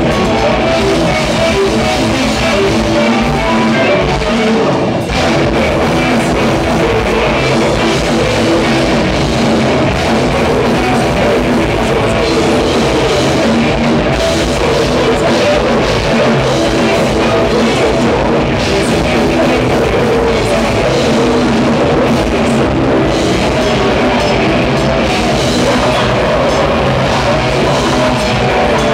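Death/grind band playing live: drum kit and distorted electric guitars in a loud, dense, unbroken wall of sound, with a brief dip about five seconds in.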